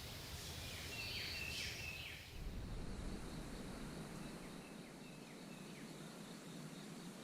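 Small songbird calling outdoors: short, high notes that slide downward, several in quick succession in the first two seconds, then fainter ones after a sudden change in the background hiss, over a steady outdoor background.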